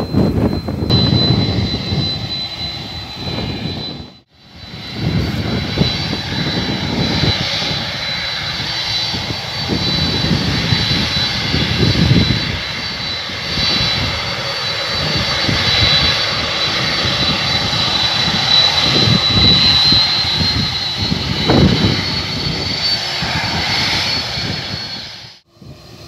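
Boeing 767-300ER twin jet engines running at high power on the takeoff roll: a steady loud jet noise with a thin high fan whine that rises slightly near the end. The sound cuts out briefly about four seconds in and again just before the end.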